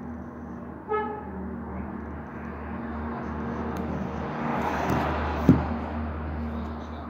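A vehicle passing by, its noise swelling and then fading, with a short beep about a second in and a brief thump about five and a half seconds in.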